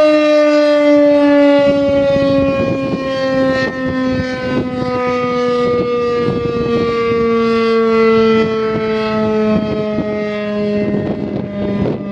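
Federal Signal Thunderbeam outdoor warning siren sounding a loud, sustained two-note tone that slides slowly and steadily down in pitch. Wind gusts buffet the microphone.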